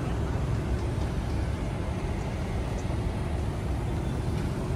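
Street traffic noise: a steady low rumble of passing cars and motorbikes.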